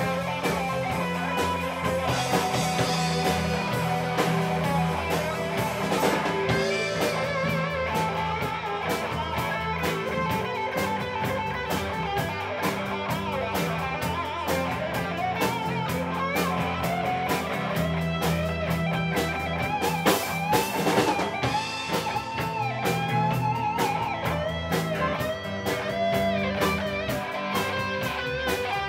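Live rock band playing an instrumental passage: electric guitars, one carrying a lead line of bent, wavering notes, over a steady drum beat and a low bass part.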